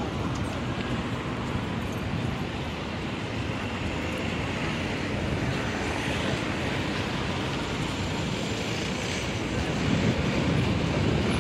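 Outdoor street noise: a steady, shifting noise of wind on the microphone mixed with city traffic, getting a little louder near the end.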